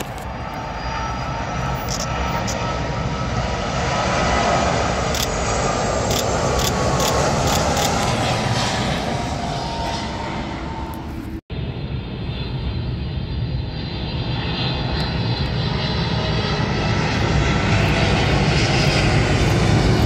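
Large twin-engine jet airliners on final approach passing low overhead: a continuous jet engine noise with whining tones that slowly fall in pitch. It breaks off abruptly about eleven seconds in and a second airliner's engine noise takes over, growing louder toward the end.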